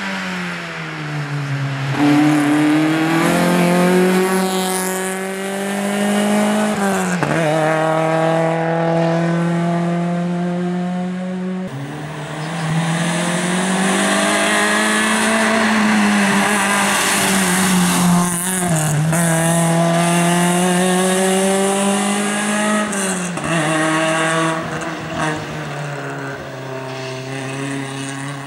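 Suzuki Swift rally car's engine revving hard at speed, its pitch climbing and then dropping sharply at each gear change, about every five seconds, over loud road and tyre noise.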